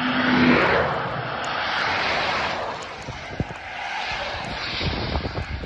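Wind and rain buffeting a phone's microphone in a storm: a rushing noise, strongest in the first two seconds, with scattered low thumps in the second half.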